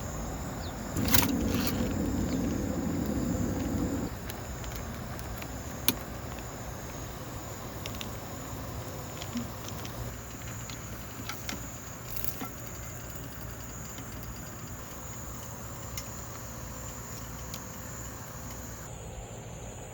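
Crickets chirring steadily, with scattered small clicks and knocks. A louder, noisy rustle from about one to four seconds in.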